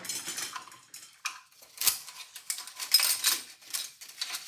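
Irregular metallic clicking and clattering as a mainspring is unwound and its barrel worked apart, with a few sharper metal knocks.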